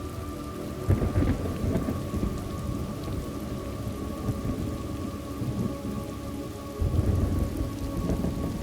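Thunderstorm: steady rain with rolling thunder, one rumble building about a second in and another starting near the end.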